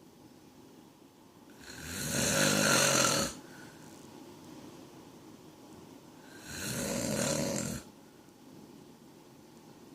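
A man snoring: two loud snores about five seconds apart, each swelling up and then cutting off sharply.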